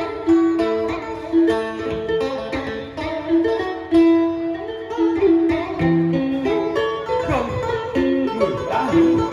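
Instrumental music: a plucked-string melody of held notes, with sliding, bent notes near the end, and no singing.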